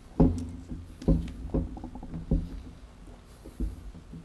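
A series of irregular, dull thumps and knocks, five or six of them, with one loud thud at the start.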